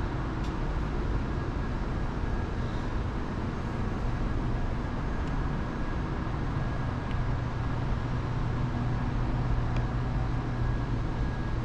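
Steady low rumble of a running vehicle, even and unbroken, with a few faint ticks.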